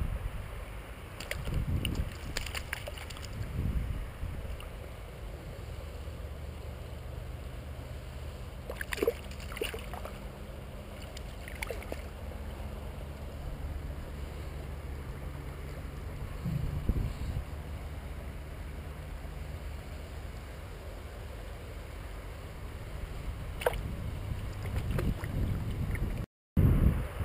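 Steady low rumble of river water and wind buffeting the microphone, with a few brief sharp clicks from handling.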